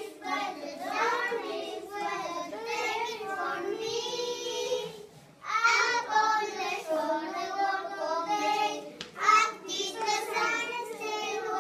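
Young children's voices singing, with a short break about five seconds in.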